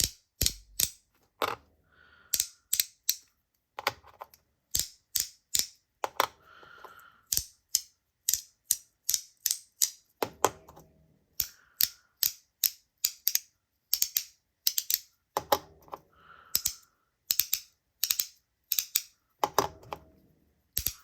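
Magnetic haptic fidget coins being snapped back and forth by hand: a long run of sharp clicks, often in close pairs, about two a second.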